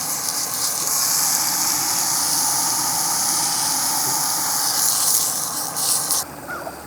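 Hot dogs sizzling in a pan on a small butane camping stove: a steady high hiss that cuts off suddenly about six seconds in.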